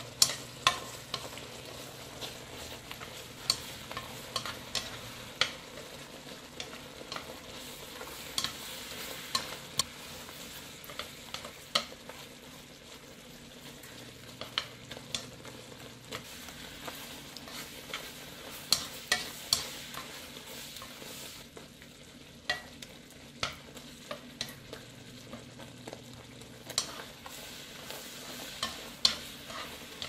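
Sliced ginger bubbling in thickened sugar syrup in a nonstick wok on medium heat, being made into candied ginger. Wooden chopsticks click sharply against the pan now and then as the slices are stirred.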